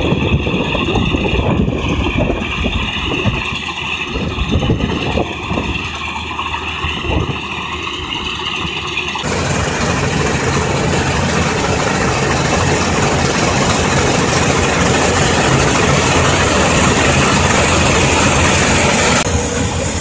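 Combine harvester running while harvesting in the field: a steady din of engine and threshing machinery. The sound changes abruptly about nine seconds in and again near the end.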